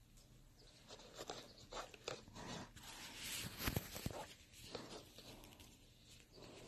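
Faint, scattered rustles and small clicks, irregular and brief, with no steady sound underneath.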